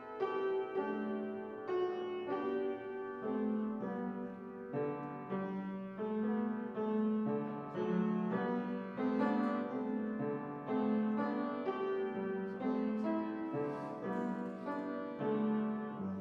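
Solo piano playing a continuous run of notes and chords, each note struck and then fading.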